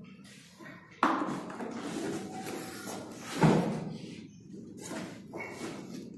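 Cardboard box and foam packing scraping and rustling as a plastic concealed cistern is handled out of its box, with a sharp knock about three and a half seconds in.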